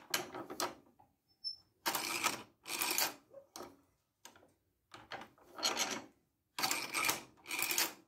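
Homemade bandsaw-blade tooth setter being worked: short scraping strokes of steel on steel, mostly in pairs, as the lever pulls the blade forward through the setter and the teeth are set.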